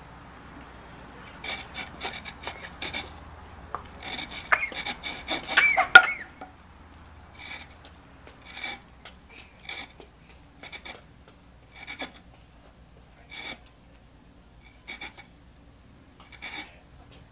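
A small hand blade scraping and cutting notches into a wooden bow-drill hearth board: rasping strokes, a quick run of them in the first six seconds, loudest near six seconds in, then single strokes about once a second.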